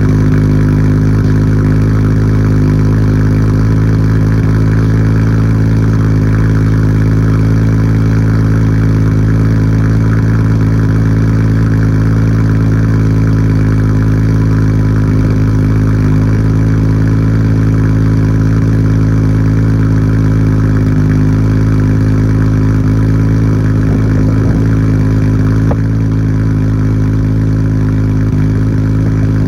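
Nissan Skyline GT-R R34's RB26DETT twin-turbo straight-six idling steadily after a cold start, heard through a Tomei Expreme Ti titanium exhaust with its bolt-in silencer fitted. It gets slightly quieter about 26 seconds in.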